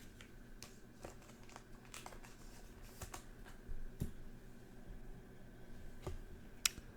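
Faint clicks and rustles of trading cards being handled and slid from the stack, a few light taps scattered through, over a faint steady high hum.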